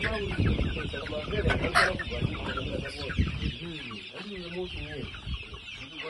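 A brooder flock of young chickens cheeping and clucking, a dense chatter of high peeps that never lets up. There is low rumbling in the first two seconds and a single sharp knock just before the two-second mark.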